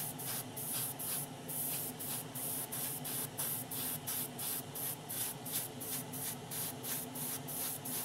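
Airbrush spraying paint in quick, even pulses of hiss, about three or four a second, over a low steady hum.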